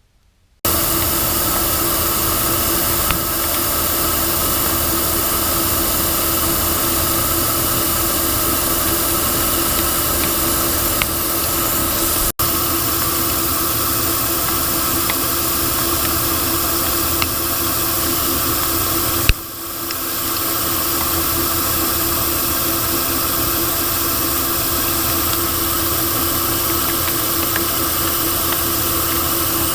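Monarch Model K engine lathe running steadily while turning down a bar of steel stock, a constant machine hum with hiss. It starts abruptly about half a second in, with brief breaks near 12 and 19 seconds.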